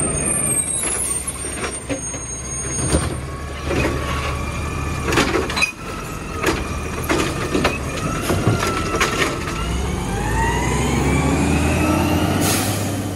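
Mack automated side-loader garbage truck at work: the diesel engine runs throughout while the hydraulic arm lifts and tips a wheeled trash cart, with a series of sharp knocks and clunks as the cart is banged against the hopper to empty it. In the last few seconds the engine rises in pitch and grows louder as the truck pulls away.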